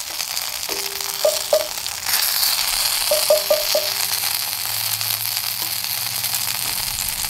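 Acorn-meal cakes sizzling steadily while slow-frying in a cast iron pan, growing a little louder about two seconds in.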